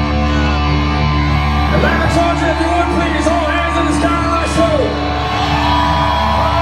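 Live hard rock band playing in a large hall, with sustained guitar chords and a voice singing over them from about two seconds in.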